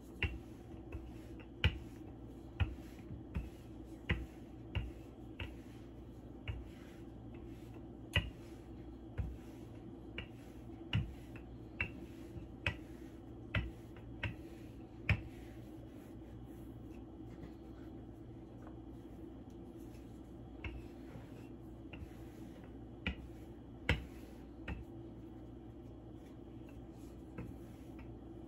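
Wooden rolling pin working pie dough on a floured wooden board: irregular sharp clicks and knocks, about one or two a second, as the pin is pushed back and forth, with a pause of a few seconds past the middle. A faint steady hum underneath.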